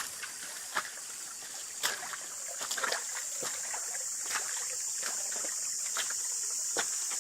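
Forest ambience: a steady high-pitched hiss with many short irregular clicks scattered through it, the hiss growing slightly louder over the last few seconds.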